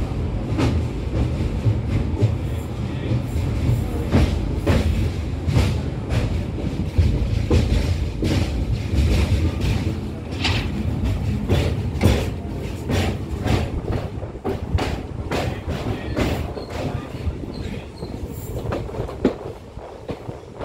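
Indian Railways passenger coach running at speed, heard from its open doorway: a steady low rumble with repeated sharp clacks of the wheels passing over rail joints, easing slightly near the end.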